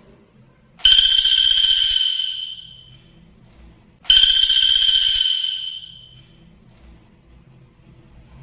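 Common flameback woodpecker (pelatuk bawang) giving its fast rolling trill twice, each call starting abruptly at full strength, then fading away over a couple of seconds.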